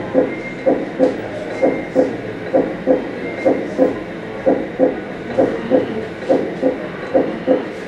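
Two fists pounding together, played back as a steady heartbeat: dull thumps in lub-dub pairs, about two a second, echoing in the open space.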